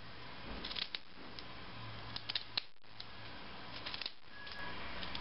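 Wooden dowel being turned in a small handheld pencil-style sharpener, the blade shaving the tip to a point. It comes as three short runs of crisp clicking scrapes.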